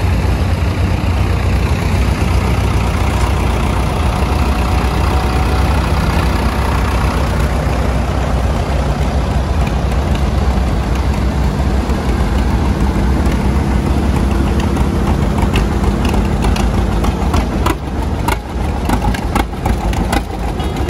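Old farm tractor engines running at low speed as tractors drive past one after another, with a steady low rumble. Near the end, a John Deere two-cylinder engine gives a slow string of separate exhaust pops.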